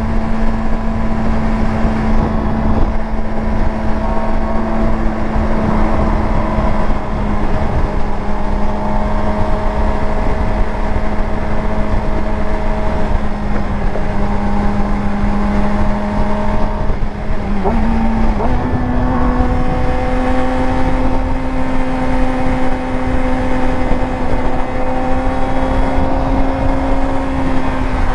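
Yamaha R6 inline-four engine running at a steady cruising speed under a rush of wind noise. About two-thirds of the way through, the engine note breaks briefly and then holds steady at a slightly higher pitch.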